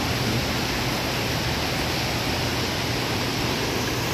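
Very heavy rain falling steadily: a dense, even hiss of rain.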